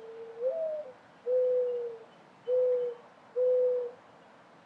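Mourning dove giving its cooing song: an opening coo that slurs up and then down, followed by three long, low, level coos about a second apart.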